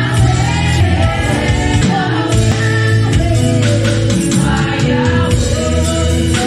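A women's praise team singing a gospel worship song together into microphones, amplified through the hall's sound system, over instrumental accompaniment with a heavy, sustained bass.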